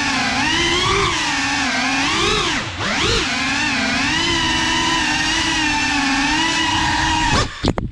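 Cinelog35 cinewhoop FPV drone's motors and propellers whining, the pitch rising and falling with the throttle and dipping briefly just under three seconds in. Near the end the sound breaks up and cuts off suddenly as the drone crashes.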